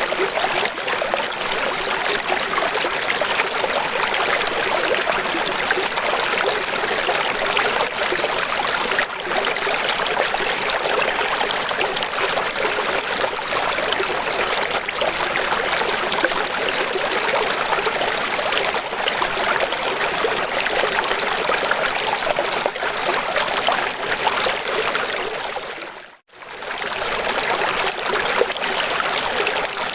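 Running water flowing steadily, a continuous hiss-like rush of a stream. About 26 seconds in it briefly fades out to silence and comes straight back.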